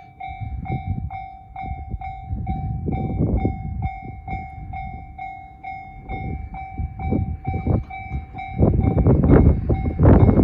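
JR standard electronic level-crossing bell dinging rapidly over and over as the crossing's alarm runs. Under it, a train's wheels clack over rail joints in bursts, and a louder rumble of a train passing close takes over near the end.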